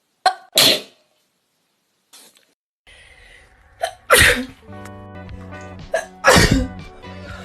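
Three loud sneezes: one about half a second in, then two more over background music that starts about three seconds in.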